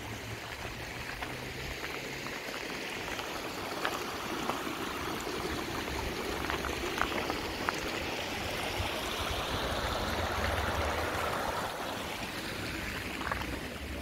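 Small rocky brook splashing and trickling over stones, a steady rushing that grows louder through the middle and eases near the end. Occasional footsteps crunch on the gravel path.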